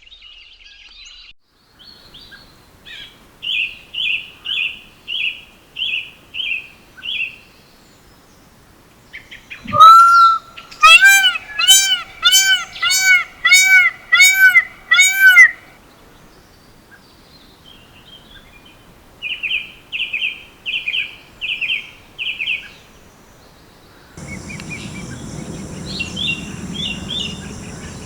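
Indian peafowl (blue peacock) giving a loud, rapid series of about nine arching calls, about half a second apart. Before and after it come shorter series of quicker, higher-pitched calls. A sharp thump comes just before the loud series, and near the end the background hiss rises suddenly.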